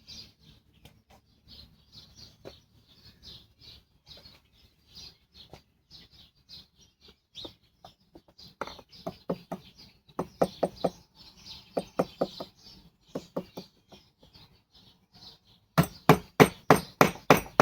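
A hammer tapping fasteners into wood to start them, in short groups of sharp knocks that end in a fast run of about seven loud strikes. Birds chirp faintly throughout.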